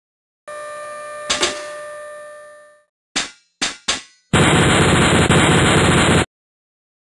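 Sound effects for an animated metal logo. A ringing metallic tone fades out over about two seconds. Then come three sharp metal clanks, and then a loud rapid rattle lasting about two seconds.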